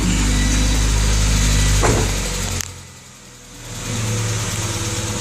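A 1995 Honda Civic's 1.5-litre four-cylinder engine running just after start-up. The sound drops away abruptly about two and a half seconds in, then comes back as a steady idle about a second later. This engine has a tick that the owner thinks may need a valve adjustment.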